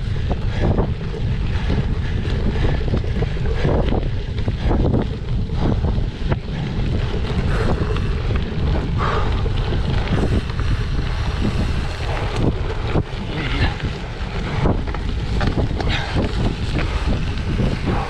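Wind buffeting the microphone of a camera riding along with a cyclocross bike at race pace: a constant low rumble, with frequent short knocks and rattles from the bike over rough ground.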